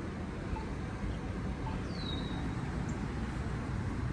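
Steady low street-traffic rumble, with one short, high, falling chirp about two seconds in.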